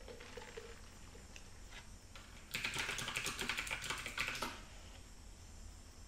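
Typing on a computer keyboard: a rapid run of keystrokes lasting about two seconds, starting just before the middle, with a few scattered key clicks before it.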